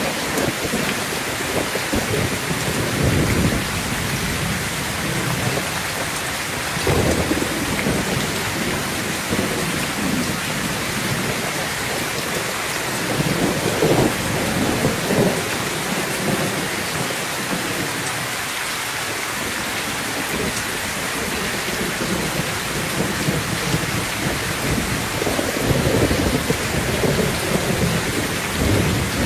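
Heavy rain pouring steadily onto a metal roof, an even hiss, with thunder rumbling up several times, about three, seven and fourteen seconds in and again near the end.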